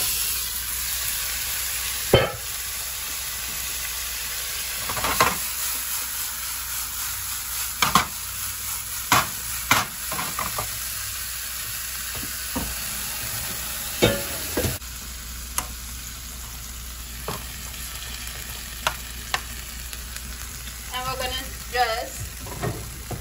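Broccoli florets sizzling and steaming in a stovetop pan of melted butter, a steady hiss broken by occasional sharp knocks against the pan. The hiss drops a little about two-thirds of the way through.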